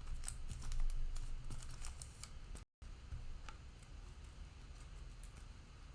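Faint handling of cellophane-wrapped trading-card packs and cards: light crinkling and clicking, busiest in the first half, with the audio cutting out briefly near the middle.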